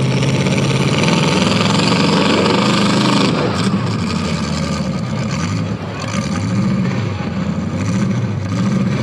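Full-size V8 demolition derby cars' engines running loud over a wide noise, held steady at first, then rising and falling from about three seconds in as the cars rev.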